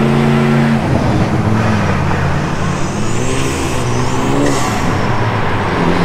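Car engine running under load. Its note drops about a second in, then climbs again around the middle as it revs up.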